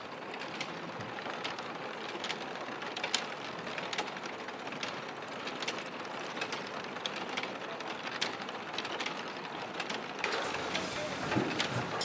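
Steady mechanical clattering and rattling with frequent sharp clicks, like factory machinery running. A louder, busier clatter starts about ten seconds in.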